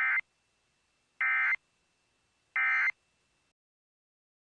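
Emergency Alert System SAME end-of-message data bursts: three short, identical digital squawks about 1.3 seconds apart, marking the end of the alert message.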